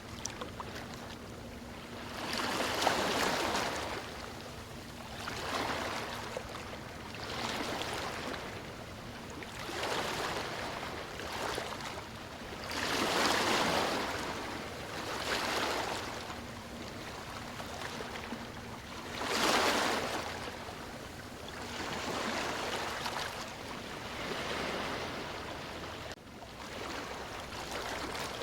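Sea waves breaking and washing up a beach, the surf swelling and fading about every two to three seconds, with the biggest waves about three, thirteen and nineteen seconds in.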